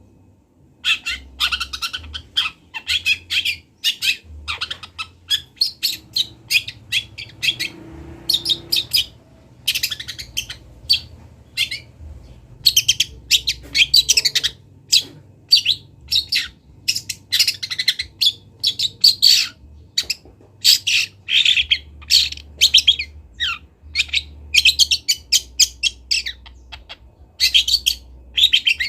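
Juvenile long-tailed shrike (speckled young cendet) practising its song: rapid runs of short, high chirps and scratchy notes in quick bursts with brief pauses.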